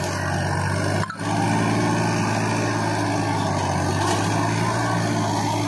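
Farmtrac tractor's diesel engine running steadily, with a brief dip in level about a second in.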